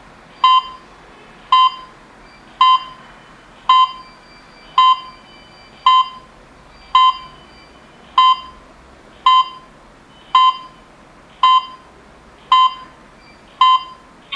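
Home alarm system control panel beeping: thirteen short beeps of one even pitch, about one a second.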